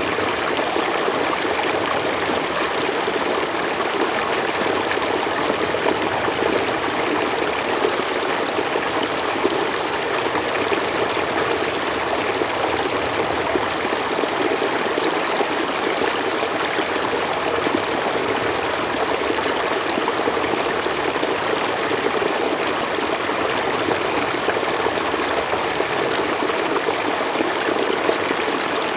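Stream water flowing steadily over rocks, a continuous rushing with trickling.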